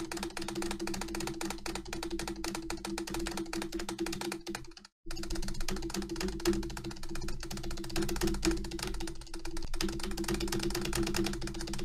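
Rapid, continuous clicking of an Acer computer keyboard's spacebar being hammered about seven times a second, with a steady low hum underneath. The sound cuts out completely for a moment about five seconds in.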